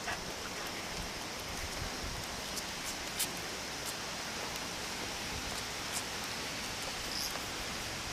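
Steady outdoor background hiss, with a few faint clicks and light rustling as a hand pats a Shiba Inu's fur.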